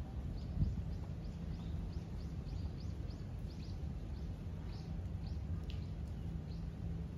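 A small bird chirping over and over, short high calls about two a second, over a steady low outdoor rumble. A single low thump about half a second in.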